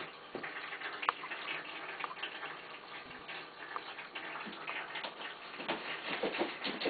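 Scattered light, irregular clicks and ticks over a steady hiss, with one sharper click about a second in: a kitten's claws and paws on a plastic cat house and a hard vinyl floor as she climbs down and scampers off.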